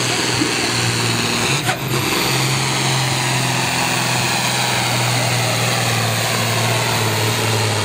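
Ford 9600 pulling tractor's diesel engine running flat out under load while dragging a weight-transfer sled, a loud steady drone. It dips briefly about two seconds in.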